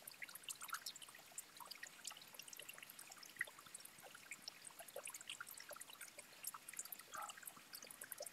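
Faint, scattered light clicks and taps of small metal parts being handled as a Bosch high-pressure diesel fuel pump is taken apart on a workbench.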